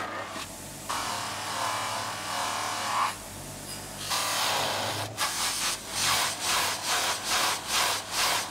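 Hand rubbing with an abrasive on a hard surface. It goes as longer scraping passes at first, then as quick, even back-and-forth strokes, about two and a half a second, in the second half.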